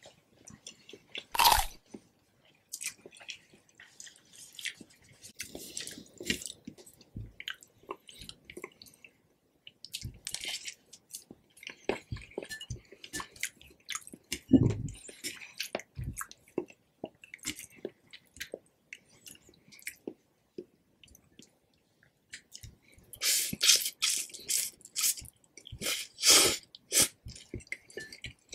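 A person chewing a mouthful of Indomie Mi Goreng fried noodles close to the microphone, with wet, sticky mouth sounds and small clicks. Near the end comes a louder, busier stretch of eating sounds.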